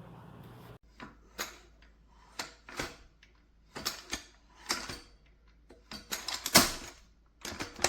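Irregular clicks and light knocks of a kick scooter's parts being handled, about a dozen spread over several seconds, the loudest about two-thirds of the way through.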